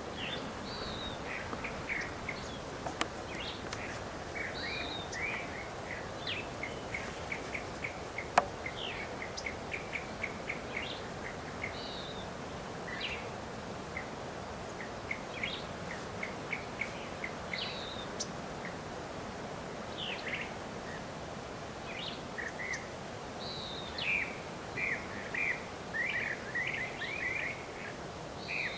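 Wild birds calling over a steady outdoor hiss: many short, high chirps and twittering notes in quick series, with a louder run of calls near the end. A sharp click sounds about three seconds in and another about eight seconds in.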